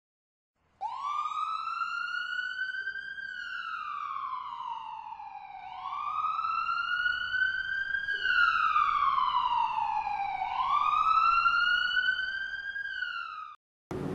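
Ambulance siren wailing, its pitch rising and falling slowly, about five seconds per cycle; it starts about a second in and cuts off suddenly near the end.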